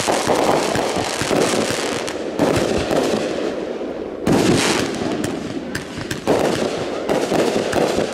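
Consumer aerial fireworks bursting overhead: a string of sharp booms about every two seconds, the loudest about four seconds in, with dense crackling between the bursts.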